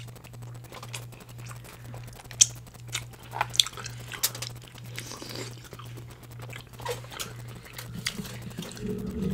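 Close-miked eating of boiled crab: scattered sharp cracks and crunches of shell, with chewing between them. A steady low hum runs underneath.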